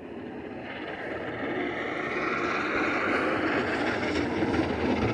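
Snowplow truck running as it approaches, its engine and rumble growing steadily louder.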